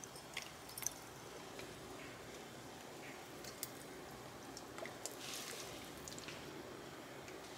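Fish sauce being poured from a bottle into a pot of steaming broth: a few faint clicks of the bottle and a short, soft trickle of liquid about five seconds in.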